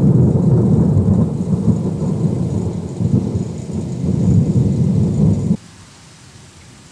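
Thunder rumbling loudly in several rolling surges, deep and low. It cuts off abruptly about five and a half seconds in, leaving only a faint steady hiss.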